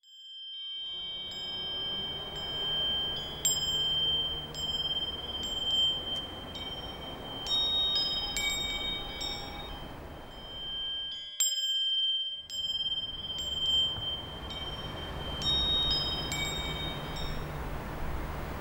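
Tinkling chimes: many light, high, ringing strikes at irregular intervals over a steady high tone and a low rumble. The sound breaks off for about a second near the middle, then starts again.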